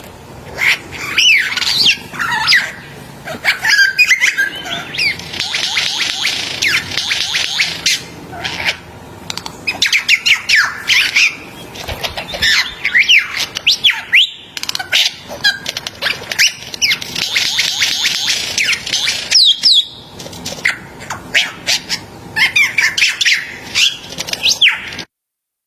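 A bird singing loudly and at length, its quick whistled notes sliding up and down, broken by dense buzzing, rattling passages. The song cuts off suddenly near the end.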